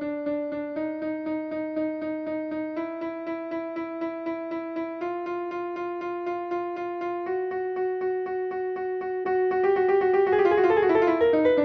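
Computer-generated tones sonifying the logistic map: one rapidly repeated note that steps slowly upward in pitch as the growth rate rises. About nine seconds in, it splits into two alternating notes that drift apart and grow louder, the sound of the first period-doubling bifurcation.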